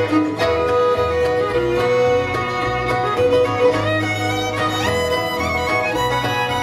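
Live bluegrass band playing an instrumental break between verses, a fiddle carrying the melody over guitar and upright bass.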